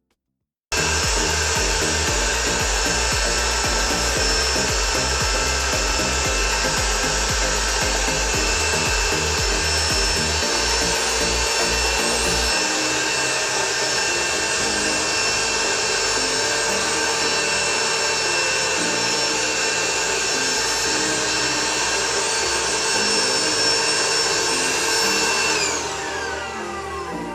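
Electric air pump running: it starts suddenly with a steady high-pitched motor whine and rushing air, then near the end is switched off and its pitch falls as the motor spins down.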